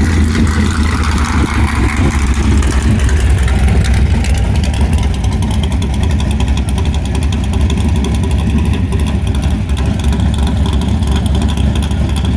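Car engine with a loud performance exhaust idling steadily, with no revving. A hiss of applause trails off in the first few seconds.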